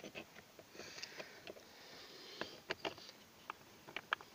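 Faint handling noise as the OBD-II scanner's cable and connector are plugged into the car's diagnostic port: scattered light clicks and taps with soft rustling, the clicks bunched about halfway through and again near the end.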